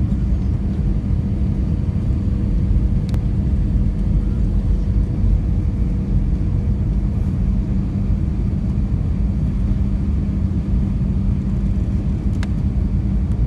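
Steady cabin noise of an Airbus A320-family airliner on final approach, heard from a seat over the wing: the engines and rushing air make a constant low rumble. A faint steady whine runs under it for about the first half.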